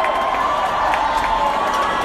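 Concert audience cheering and shouting, many voices at once, with scattered clapping.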